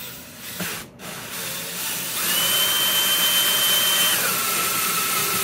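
Cordless drill spinning a hole saw that cuts through a plastic tote lid. After a brief burst it runs steadily with a high motor whine that drops to a lower pitch about four seconds in.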